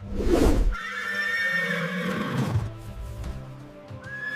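Horse neighing: a long whinny about a second in, with a second whinny starting near the end, over background music.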